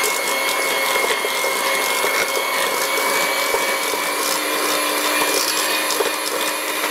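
Electric hand mixer running steadily at one speed, its beaters churning cream cheese in a stainless steel bowl, with a steady high whine.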